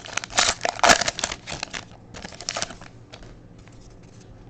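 Crinkling and rustling of plastic card packaging as hockey trading cards are handled. It is loudest in the first two seconds and comes back briefly a little past two seconds, then fades to faint scattered ticks.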